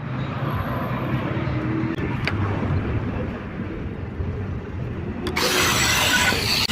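A power tool working stone runs steadily with a low hum and a couple of clicks. About five seconds in, a much louder and harsher cutting noise starts and carries on to the end.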